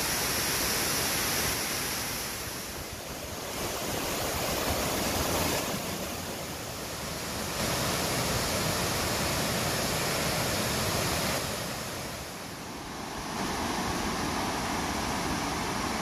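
Large waterfall cascading down bare rock ledges: a steady rushing roar of falling water that swells and dips in level every few seconds.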